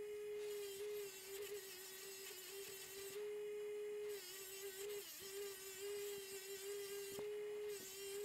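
Pedestal bench grinder motor running with a steady hum while a brazed cast iron pulley is held against its spinning wire wheel, giving a scratchy brushing sound. The brushing drops away twice, for about a second each time, as the pulley is eased off and turned.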